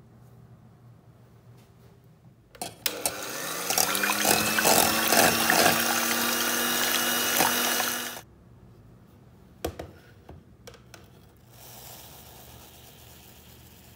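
Electric hand mixer switched on with a click, its motor rising to speed and running for about five seconds as the beaters whisk egg whites in a metal bowl, then cutting off. A couple of sharp knocks follow, then near the end a soft hiss of sugar pouring into the foamy whites.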